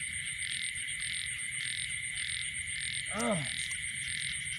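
Night chorus of frogs and insects: a call repeating about twice a second over a steady, fast insect trill. About three seconds in, one short call rises and falls in pitch.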